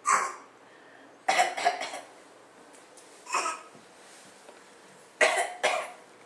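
A young child's deliberate fake coughs, dry and forced, in short bouts: one at the start, a quick run of three about a second in, another in the middle, and two more near the end.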